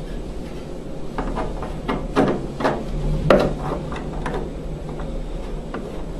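An air intake coupling is being worked into a gas furnace's sheet-metal cabinet, giving a run of irregular knocks and clunks. The loudest knock comes a little over three seconds in.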